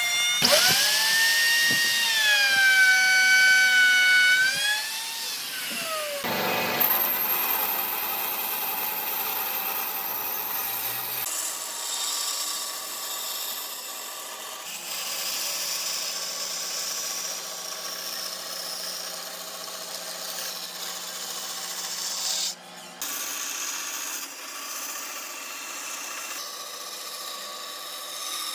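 A high-speed handheld power tool cutting into wood, its whine dipping and rising in pitch as it loads up for the first few seconds. Then a bandsaw runs and cuts through a thick, weathered plank of old boat wood, in several stretches that change abruptly.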